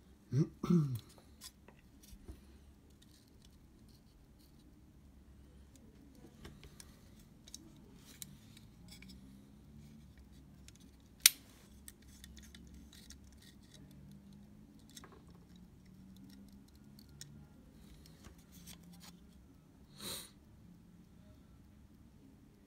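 Scattered small clicks and taps of tools and parts being handled during repair work on a camera's cloth shutter, with one sharp click about eleven seconds in and a short rustle near the end.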